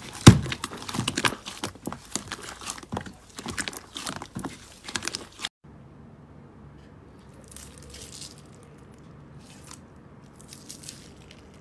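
Hands squeezing and kneading thick slime: a dense run of squishes, pops and crackles. About five and a half seconds in it cuts off, and there is only much fainter, occasional crackling as a hand presses into slime topped with tiny clear beads.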